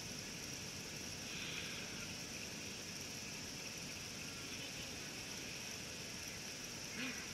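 Steady drone of insects in the bush, over a background hiss. Near the end a honking bird call starts.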